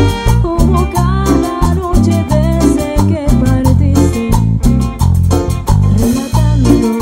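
Salsa band playing: trumpets over congas and drum kit, with a heavy, steady bass line and beat.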